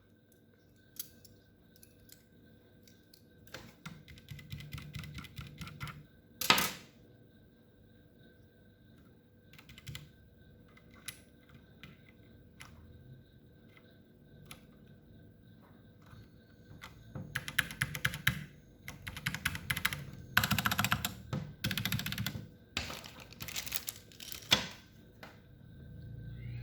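AKKO 3087 mechanical keyboard being typed on. Scattered single keystrokes come first, with one louder clack about six seconds in, then fast runs of typing in the last third.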